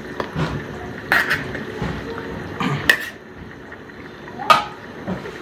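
A long metal ladle scraping and clanking against a large steel wok while stirring a thick chicken curry: softer stirring with several sharp clanks, the loudest about three seconds in and about four and a half seconds in.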